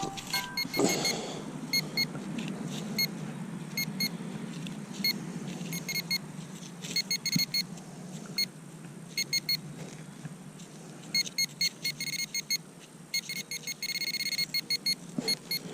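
Nokta Makro Simplex metal detector giving short, high beeps again and again, often in quick clusters, signalling a buried metal target as it is pinpointed. A steady low hum runs beneath.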